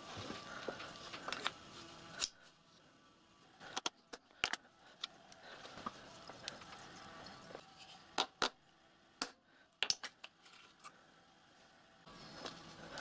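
Scattered sharp metallic clicks and taps, about a dozen at uneven intervals, from hand work on a steel part being marked with graduations, with faint workshop room noise between.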